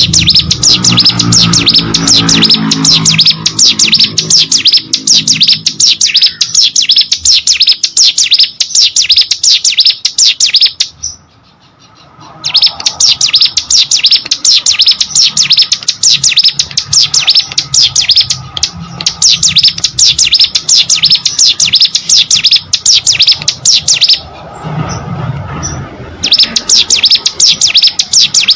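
Ciblek gunung, a small prinia kept as a songbird, singing nonstop in a rapid string of high, sharp chirps. The singing breaks off twice for a second or two.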